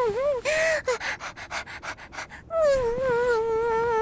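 A woman's voice imitating a happy puppy: a drawn-out, wavering whine, a quick run of panting breaths, then another long whine.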